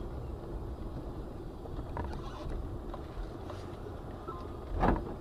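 Steady low rumble of a car driving, recorded by a dashcam. A single brief, loud knock or thump comes near the end.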